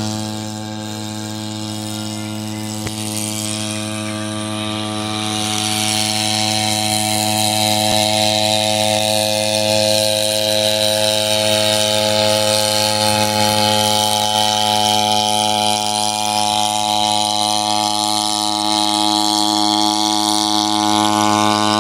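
Hybrid agricultural spraying drone in flight: its onboard fuel-driven generator engine running at a steady pitch together with the buzz of its rotors, with a higher whine that slowly drifts up and down. It gets a little louder about five seconds in.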